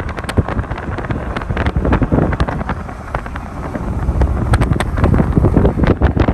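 Wind buffeting a phone microphone: a loud, uneven low rumble with crackling pops.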